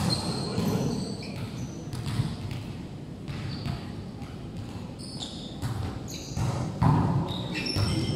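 Volleyball thuds and bounces on a wooden sports-hall floor, with short shoe squeaks and faint players' voices, all echoing in the large hall. The loudest knock comes about seven seconds in, as a new rally gets going.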